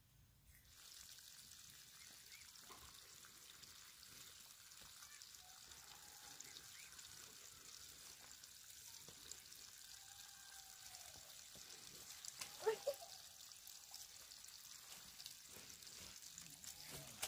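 Faint steady trickle of running water, starting about a second in, with a brief louder voice-like call about three-quarters of the way through.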